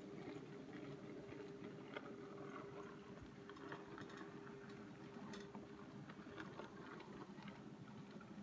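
Faint, steady hum of an AHM/Rivarossi HO-scale Dockside switcher's small electric motor and gears running at slow speed, with scattered light clicks of the wheels on the track. The hum fades about six seconds in.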